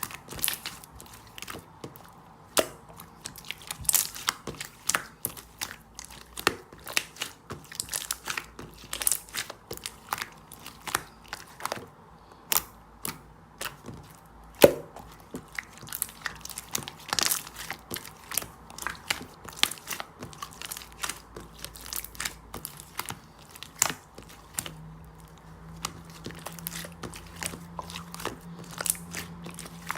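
Irregular crisp crackling and snapping, several sharp clicks a second with occasional louder cracks, and a faint steady low hum starting near the end.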